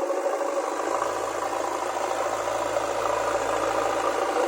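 Heavy machinery's diesel engine running steadily, with a low hum joining in just after the start.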